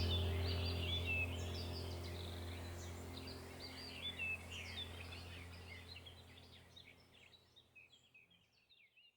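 Birdsong, many short chirps, over a low steady drone from a relaxation soundtrack, both fading out gradually to nothing by the end.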